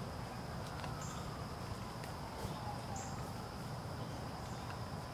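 Insects chirring steadily in the evening woods: a constant high, thin drone, with a short higher chirp about every two seconds, over a low background rumble.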